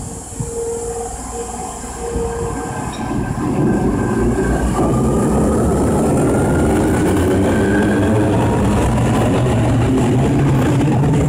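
Osaka Metro 30000-series subway train pulling away from an underground platform. A faint whine rises in pitch as it gathers speed, and the rumble of the wheels on the rails grows loud about four seconds in and stays loud.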